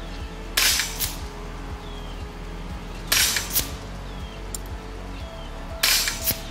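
Three shots from a moderated Kalibrgun Springbok .22 (5.5 mm) PCP air rifle, about two and a half seconds apart, with its regulator set low at 50 bar. Each shot is a short sharp crack followed by a fainter click about half a second later.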